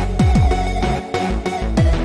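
Electronic background music, with deep bass notes that sweep downward in pitch, two in quick succession near the start and another near the end.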